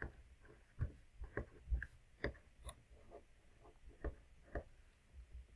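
Felt-tip marker writing on paper: faint, irregular ticks and taps of the tip, about a dozen spread over a few seconds, ending shortly before the end.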